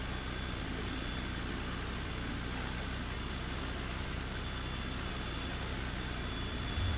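Creality Falcon 2 22 W diode laser engraver running as it engraves plywood: a steady whirring of its fan and air assist, with the head's motors stepping it along the lettering. A brief low thud near the end.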